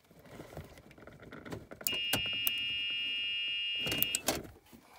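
Club Car DS golf cart reverse warning buzzer sounding one steady high tone for about two seconds as the forward/reverse selector is moved into reverse and back out. Sharp clicks from the selector and its micro switches come before and around the buzz.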